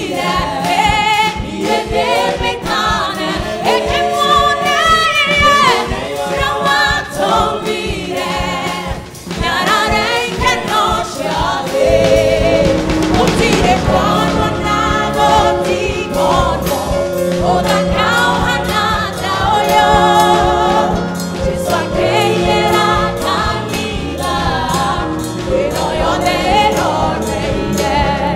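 Gospel song performed live: a woman and two men singing together into microphones over a band with a drum kit, the bass growing fuller about twelve seconds in.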